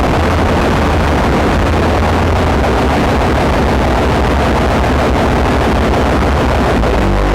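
Harsh noise music: a loud, dense wall of distorted noise over a heavy low drone, with pitched distorted tones coming in near the end.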